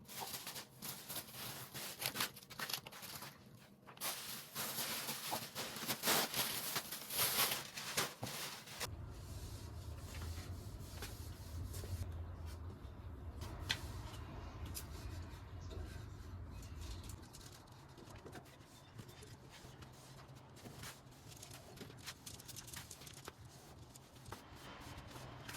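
Rustling and crinkling with many small clicks, like things being handled and put away. About a third of the way in, a steady low hum starts and lasts several seconds, then quieter handling noises follow.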